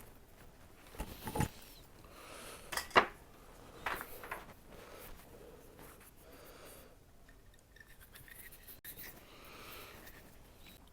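Small handling sounds of wires and drill parts being worked by hand: scattered light clicks and soft rubbing, the sharpest click about three seconds in.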